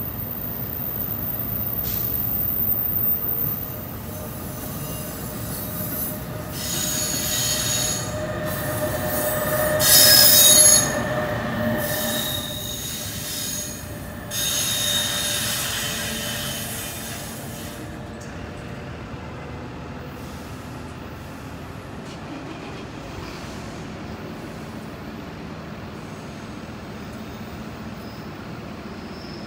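Commuter train's steel wheels squealing against the rails as it pulls away. The high screech starts a few seconds in, peaks about ten seconds in and stops about eighteen seconds in, leaving a low steady rumble.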